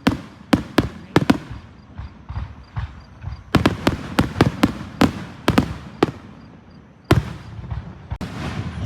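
Fireworks going off: about twenty sharp bangs in quick, irregular succession, some in tight clusters.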